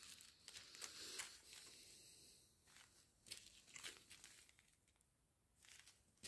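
Faint crinkling of small plastic zip-lock bags of diamond-painting drills being handled, in irregular short spells.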